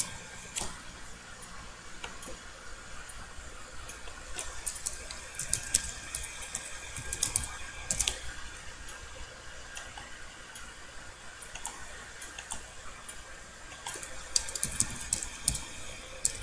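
Computer keyboard typing in short, scattered bursts of key clicks.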